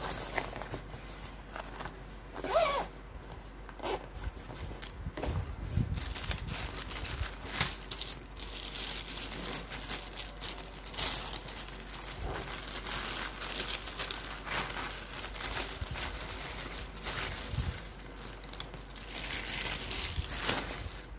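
Clear plastic wrapping crinkling and rustling as a tripod is unwrapped by hand, with irregular crackles and small handling knocks, the crinkling thicker in the second half.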